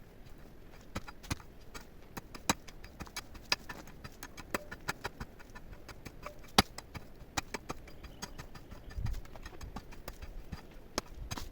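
A run of sharp, irregular knocks and clicks of hard objects, several a second, one louder knock past the middle, and a low thud near the end.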